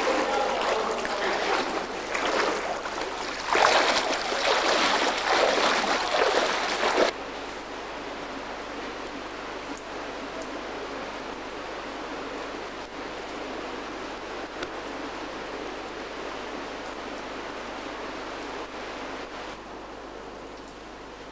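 Rushing, splashing water in a cave, loud and irregular with surges, cutting off abruptly about seven seconds in to a steady low hiss.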